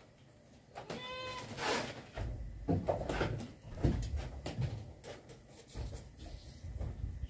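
A short high-pitched cry about a second in. Then a run of uneven knocks, thumps and rattles from hands working at a wall-mounted solar charge controller and breaker box.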